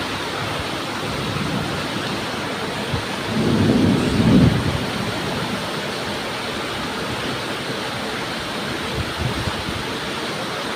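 Steady heavy rain pouring down, with a low rumble starting a little over three seconds in and lasting about a second and a half.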